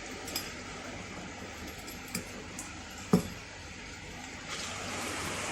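A few light clinks and knocks of hard objects being handled, the loudest about three seconds in, over a steady background hiss.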